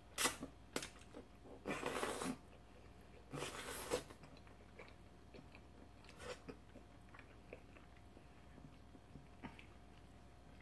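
A person chewing raw salmon close to the microphone: a couple of sharp clicks at the start, two short bursts of wet chewing noise around two and four seconds in, then faint scattered mouth smacks and ticks.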